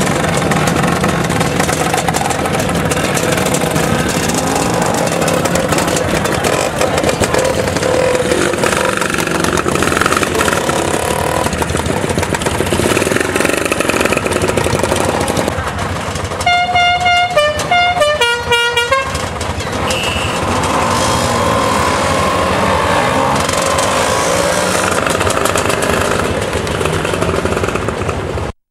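A group of motor scooters running and riding off, their engines blending with traffic noise. About two-thirds of the way through, a horn sounds a quick run of stepped, mostly falling notes, like a musical horn playing a tune.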